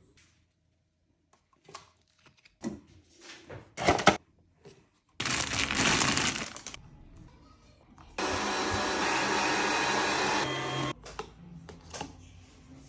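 A small electric kitchen motor, blender-like, running in two short bursts. The second is a steady run of about three seconds that cuts off suddenly. A few clicks and knocks come before the first burst.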